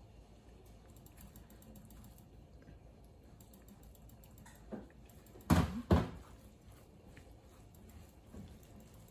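Hands crackling and rustling through dry shredded kadayif (kataifi) dough as melted butter is worked into it, a faint run of small ticks. About five and a half seconds in come two sharp knocks, a glass measuring jug set down on the stainless steel counter.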